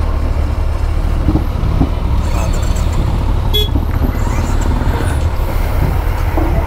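Vehicle engines running with a low, steady rumble, with a short high beep about three and a half seconds in.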